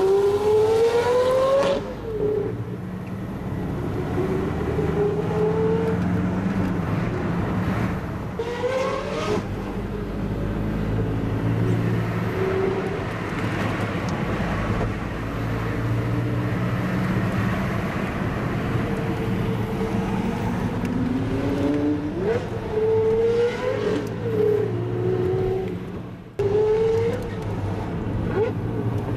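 Lamborghini Murciélago LP640's V12 accelerating hard, heard from a following car: the revs climb sharply and drop at each gear change, with a steady drone while cruising between pulls and a quick series of rev rises and falls near the end.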